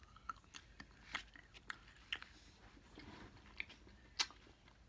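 Close-up chewing of ice cream with chocolate chips: quiet mouth sounds broken by a scatter of small, sharp clicks and crunches, the sharpest a little after four seconds.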